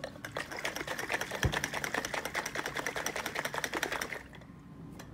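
Stainless-steel Mighty Mug travel mug rattling with rapid, even clicks as it is jostled and shaken by hand; the clatter stops about four seconds in.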